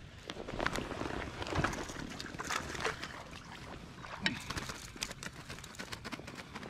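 Small largemouth bass splashing at the surface as it is reeled to a kayak on a baitcasting reel and scooped into a landing net, the splashing mostly in the first half. Scattered clicks and knocks from the reel, rod and net being handled.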